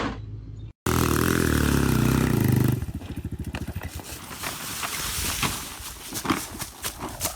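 An engine running loudly with a steady pitch for about two seconds, then dropping to a rapid low pulsing, with scattered knocks after.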